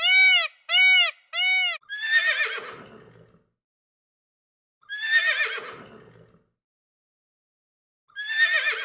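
Animal calls: three short, evenly spaced honks in the first two seconds, then three long calls about three seconds apart, each falling from high to low pitch and trailing off.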